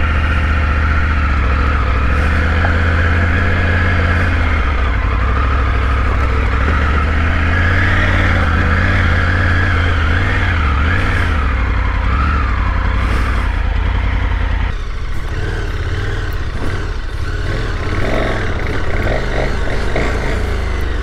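Motorcycle engine running while riding: steady at first, wavering up and down in pitch in the middle, then quieter and less even from about fifteen seconds in.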